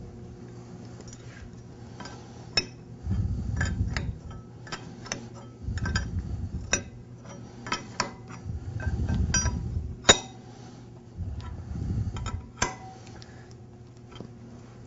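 Metal clinks and taps of hand tools and steel fittings being handled, a relief valve going back into a waterjet intensifier's steel manifold block. Four stretches of about a second of low rubbing handling noise come between the clinks.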